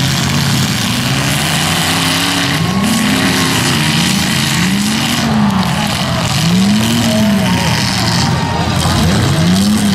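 Demolition derby cars' engines running loud, revving up and falling back again and again, about once every second or two, over a steady drone of engine noise.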